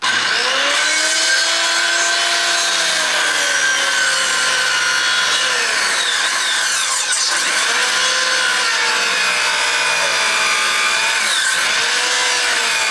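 Corded circular saw running and cutting across a wooden board, its motor whine dipping in pitch and recovering several times as the blade labours through the wood. It is a salvaged saw that cuts poorly, which the user calls terrible.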